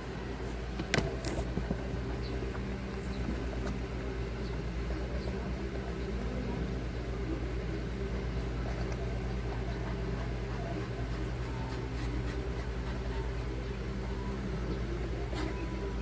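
A steady low mechanical hum, with a sharp click about a second in and a softer one half a second later.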